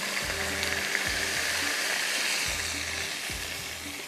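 Water poured into a wok of hot oil and fried onions, setting off a steady sizzling hiss as it hits the hot fat; the hiss eases slightly near the end.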